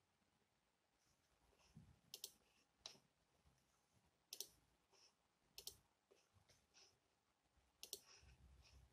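Near silence: quiet room tone with a handful of faint, sharp clicks at irregular intervals.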